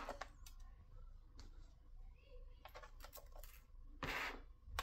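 Faint clicks and light rattles of a model-boat speed controller's wires and gold bullet connectors being handled and laid on a digital kitchen scale, with a brief louder rustle about four seconds in.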